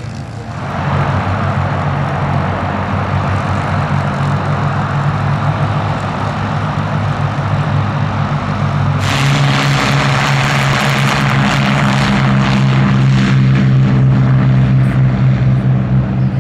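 Propeller aircraft engine running with a steady droning note. About nine seconds in the engine note shifts and a loud rushing hiss joins it, then slowly fades.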